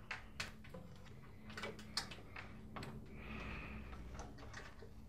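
Faint, irregular clicks and taps as the clips of a three-sided oven door seal are worked out of the oven's front frame by hand, with a brief rustle a little over three seconds in.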